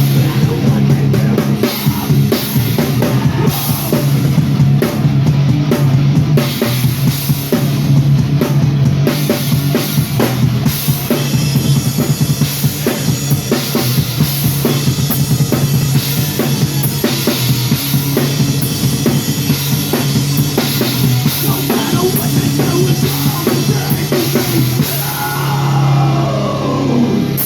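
A live rock band playing loud, with the drum kit's kick, snare and cymbals out front over a steady low bass line. A pitch slides downward near the end.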